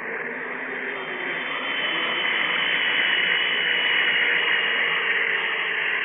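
Steam-locomotive sound effect for a radio drama: a steady hissing rush of noise that swells over the first two seconds, then holds.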